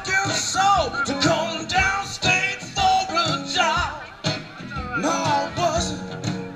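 Live acoustic blues performance: a man singing lead over two acoustic guitars.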